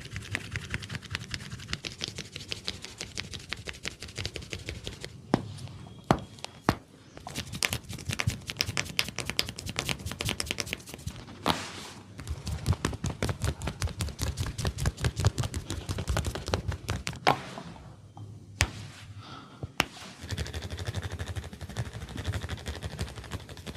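Fingers vigorously scratching and rubbing through hair and over the scalp during a head massage, a rapid, dense crackling. A few sharp single cracks stand out, around a quarter of the way in, about halfway and three quarters of the way through.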